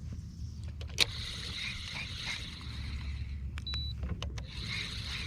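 Fishing reel: a sharp click about a second in, then a couple of seconds of whirring as line is wound in, over a low wind rumble on the microphone.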